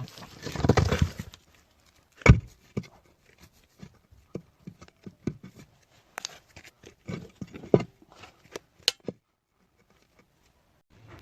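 A brief rough scraping burst, then irregular sharp knocks and clacks of hard objects being handled.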